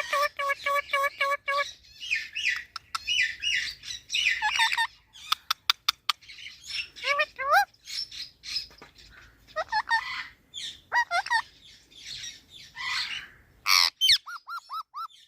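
Green parrot chirping, whistling and squawking in a busy string of calls: a quick run of evenly repeated notes at the start, rising and falling chirps, a few sharp clicks around the middle, and a short run of repeated whistled notes near the end.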